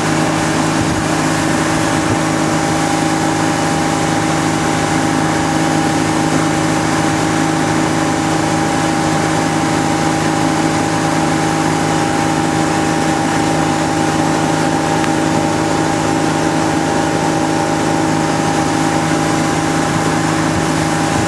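Tow boat's engine running at a steady cruising speed, one even drone that never changes, over a constant rush of wake water and wind.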